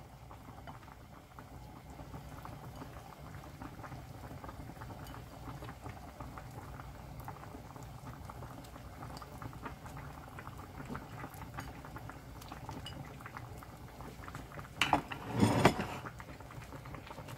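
Spicy fresh-cod stew boiling hard in a stainless steel pot: a steady, dense crackle of bubbling. About fifteen seconds in, a couple of short, louder knocks.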